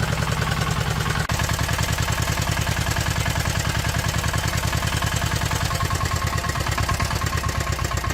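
Diesel engine idling steadily with an even, rapid firing beat.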